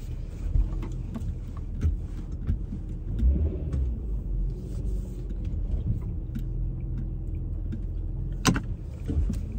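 Inside a moving car's cabin: a steady low rumble of engine and road noise, with scattered light clicks and rattles and one sharp click about eight and a half seconds in.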